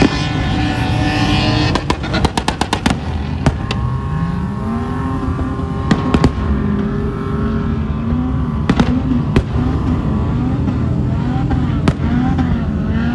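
Fireworks bursting: a rapid string of sharp cracks about two seconds in, then single bangs and short clusters every second or two. Under them, vehicle engines run and rev, the pitch climbing about four seconds in and then rising and falling over and over.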